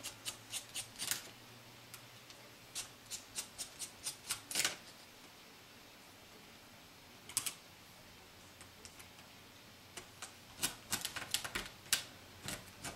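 Small sharp clicks and taps of a Phillips screwdriver on the laptop screen's mounting screws and metal bracket, coming in short clusters with gaps between.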